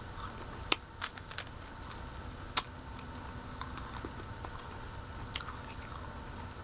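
An empty, crisp waffle cone being bitten and chewed: sharp crunches, the loudest under a second in and again about two and a half seconds in, then fainter chewing crunches.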